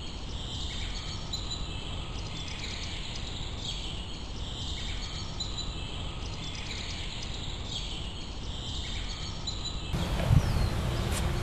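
Outdoor ambience: a steady hiss with high chirping that repeats every second or two. About ten seconds in, the sound changes to a louder, low rumbling noise.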